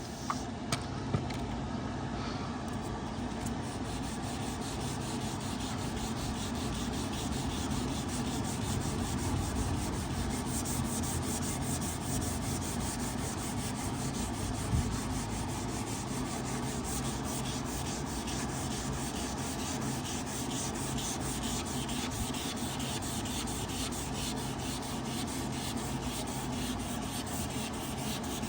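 Wet sanding of a plastic headlight lens with 600-grit sandpaper, taking off the oxidised, faded surface: a steady, rapid rubbing, with a few sharp clicks in the first second and one more about halfway.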